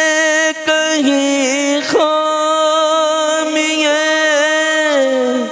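A man singing a naat, an Urdu devotional song, solo into a microphone. He holds long, drawn-out notes with wavering ornaments, breaks briefly about half a second in, and slides the last note down near the end.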